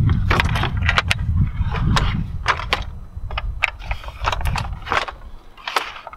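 Plastic and metal parts of a Thule UpRide roof bike carrier clicking and knocking irregularly as its mounting hardware is handled and fitted into the carrier's feet, over a low rumble that fades about halfway through.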